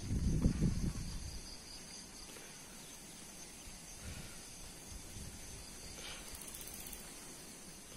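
Steady high-pitched insect chorus in coastal bush, with a short low rumble in the first second and a faster, higher pulsing buzz joining for about a second around six seconds in.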